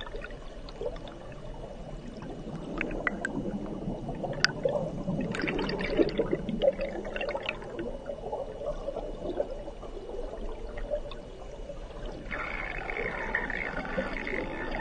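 River water rushing and gurgling, heard from an underwater camera, with scattered sharp clicks. About twelve seconds in, a higher hiss sets in.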